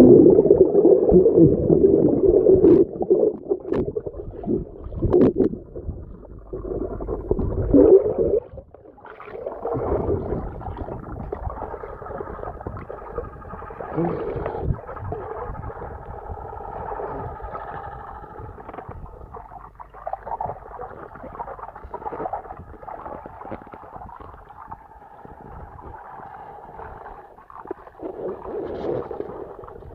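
Muffled underwater sound picked up by a camera submerged in a swimming pool: water noise, louder for the first eight seconds, then quieter with a faint steady whine.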